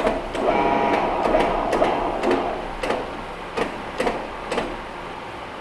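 Rubber hammer tapping a thin brass sealing ring to start it into the bore of a cast-iron pump volute: about seven light knocks roughly half a second apart, getting fainter toward the end. For the first two seconds a machine whirs loudly under the taps.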